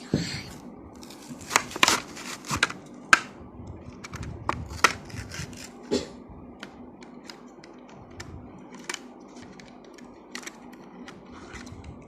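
A Hot Wheels blister pack being opened by hand: the plastic blister and cardboard card crackle and snap in a run of sharp clicks and scrapes. They are thickest and loudest in the first six seconds and grow sparser after.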